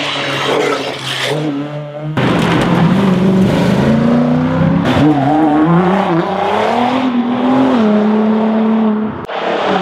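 Rally car engines at full race pace on a tarmac stage, revving up and down with the pitch rising and falling. The sound changes abruptly about two seconds in and again near the end as clips of different cars are cut together.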